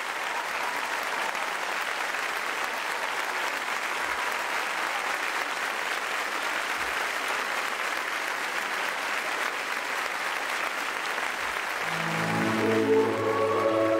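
Studio audience applauding steadily. About twelve seconds in, sustained instrumental music starts playing under the applause.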